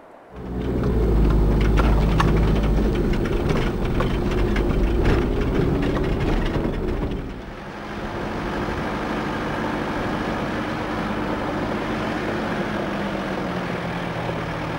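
Off-road 4x4 driving on a rough stony dirt track: engine running with many small knocks and rattles. About eight seconds in it changes to a steadier engine drone.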